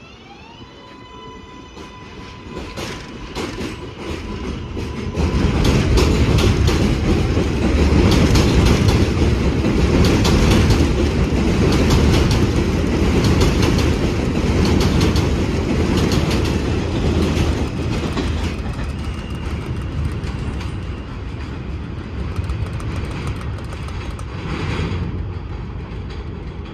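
New York City subway train pulling out: its traction motors whine upward in pitch and settle into a steady tone. Then the wheels rumble and clack over the rail joints for about twenty seconds as the cars roll past, slowly growing quieter near the end.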